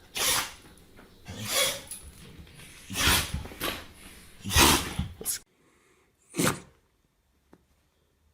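A pet sneezing four times in a row, about one and a half seconds apart, each a short, sharp burst of air. After the background hum drops out, there is one more sneeze.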